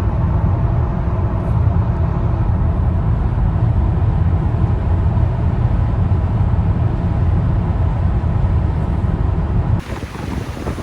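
Steady road and engine rumble of a car being driven. Near the end it cuts abruptly to wind buffeting the microphone.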